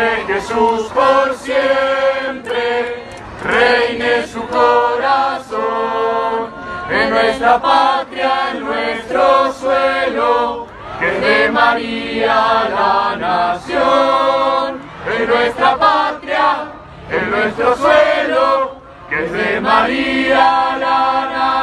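Crowd of pilgrims singing a religious song together in unison, in sung phrases with short breaks between them.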